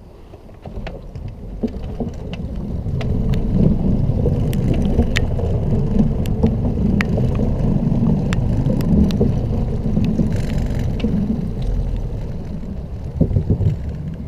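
Low wind rumble buffeting an action camera's microphone while riding an electric scooter. It builds about a second in and eases off near the end, with scattered sharp ticks and knocks throughout.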